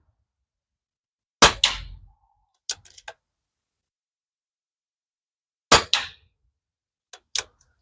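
Two shots from a Pinty P-Force PCP air rifle, about four seconds apart, each a sharp crack with a short tail. A second or so after each shot come a few lighter clicks, the bolt being cycled to chamber the next pellet.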